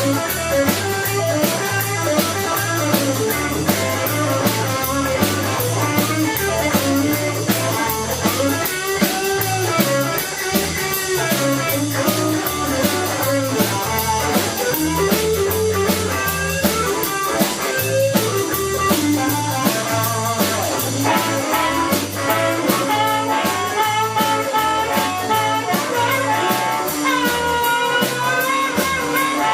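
Blues band playing a slow shuffle: electric guitar, bass and drum kit, with bent notes near the end.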